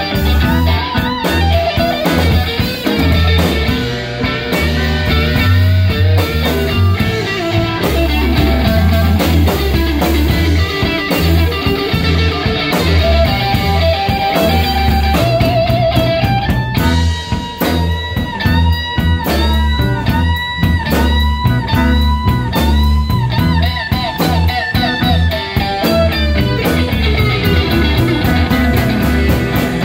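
Live blues band playing an instrumental section: electric guitars with a cigar box guitar, a steady bass line and drums. About halfway through, a guitar plays a run of repeated bent notes.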